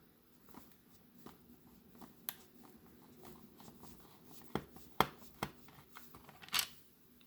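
Light clicks and taps of a plastic VHS cassette shell and its parts being handled during disassembly. There is a run of louder sharp clicks about five seconds in and a short scrape near the end.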